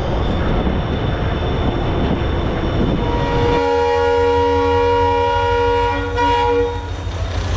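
Passenger train rolling with a steady low rumble. About three and a half seconds in, a train horn sounds one steady chord-like blast lasting about three seconds.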